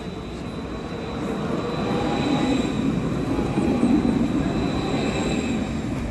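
Electric tram passing close by at low speed, with steady high whining tones from its drive over a rolling rumble. It grows louder and is loudest about two to four seconds in, then eases a little.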